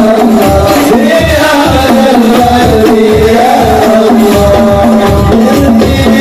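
Hadroh ensemble performing sholawat: men's voices singing over rebana frame drums, with low drum beats in a steady rhythm of about two a second.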